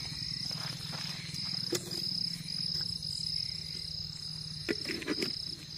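Crickets chirring steadily in a high, continuous trill over a low steady hum, with a single sharp click about two seconds in and a few brief voice-like sounds near the end.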